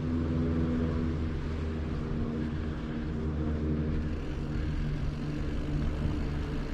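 A vehicle engine running steadily, a low hum that holds one pitch throughout.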